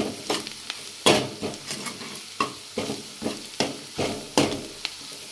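Steel ladle stirring and scraping sliced onions and spices frying in oil in a kadai, in quick strokes about three a second over a steady sizzle: the masala being fried (bhuna) with the browned onions.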